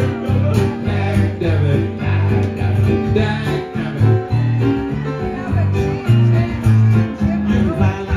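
Acoustic guitar and keyboard playing a song together, with a steady line of low notes underneath.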